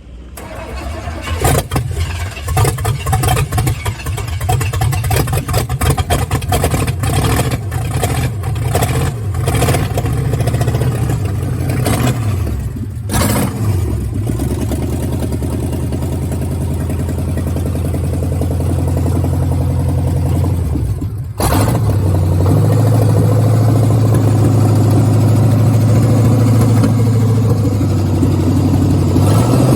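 Car engine being started with its exhaust partly disassembled, so it runs loud. It catches and runs raggedly with uneven pops and revs for the first dozen seconds, then settles into a steadier, revved run. It dips sharply about 21 seconds in and picks straight back up.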